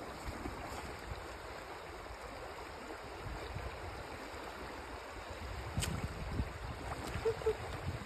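Shallow, rocky creek running steadily over stones, an even rush of water, with a couple of faint clicks near the end.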